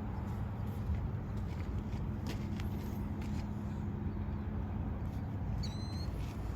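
Steady low mechanical hum in the background, with scattered light footsteps and a brief high chirp near the end.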